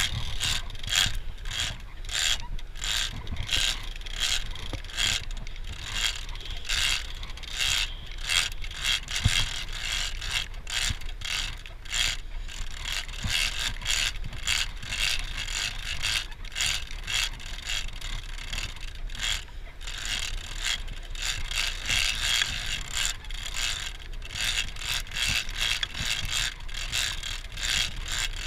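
Large big-game lever-drag trolling reel being cranked steadily by hand, winding in line: a rapid run of mechanical clicks from the reel's gears, several a second, that keeps going throughout.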